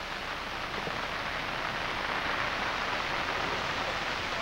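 Steady rain falling on a flooded street, an even hiss that grows a little louder over the first couple of seconds.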